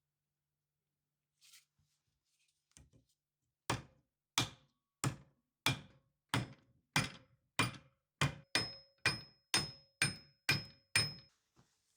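Hammer striking metal about fourteen times in a steady rhythm, the blows coming a little faster near the end, where each strike leaves a short metallic ring.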